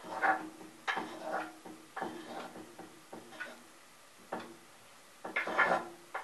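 Kitchen work: a series of irregular sharp knocks and clinks, each with a short ring.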